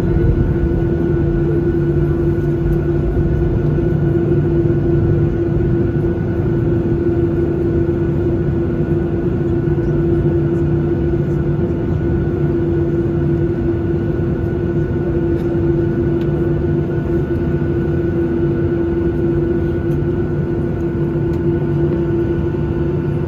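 Steady cabin rumble inside a Boeing 737-800 on the ground after landing, with a constant droning hum over it.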